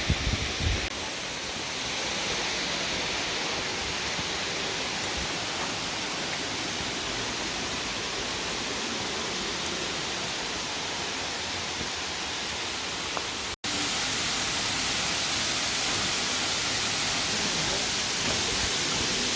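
Steady rushing roar of Lower South Falls, heard close to the falling water. It breaks off for an instant at a cut about two-thirds of the way in, then resumes slightly louder.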